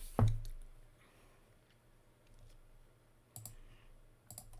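Computer mouse and keyboard clicks: a loud, dull knock-like click just after the start, then a few sharp clicks about three and a half seconds in and near the end.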